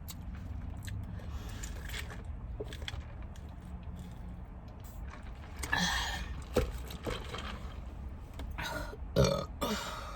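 A woman burps loudly about nine seconds in, amid quieter chewing and mouth noises while eating, over a steady low hum.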